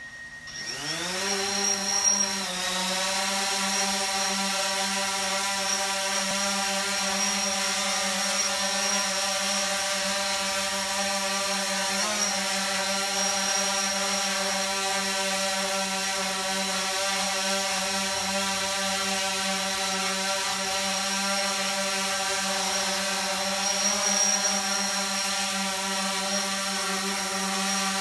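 DJI Phantom 4 Pro quadcopter's propellers spinning up with a rising whine as it lifts off, then a steady, loud buzzing hum as it hovers. The pitch briefly wobbles twice as it manoeuvres.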